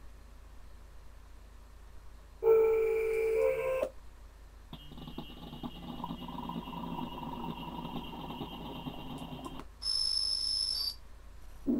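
Image-Line Toxic III software synthesizer playing a short sequence while its presets are switched, so each block has a different electronic timbre. A loud pitched tone with overtones comes about two and a half seconds in, a long sustained pad with high steady tones runs from about five to ten seconds, and a high bright tone follows briefly near ten seconds.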